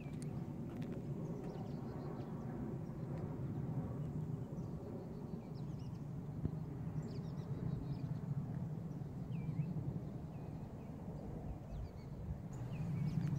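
Footsteps on bare rock and loose stones, over a steady low rumble, with faint short bird chirps scattered through the latter part.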